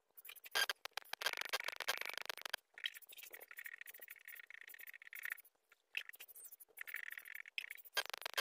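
Pencil lead scratching on paper in quick short strokes. It comes in runs of one to a few seconds with brief pauses between them.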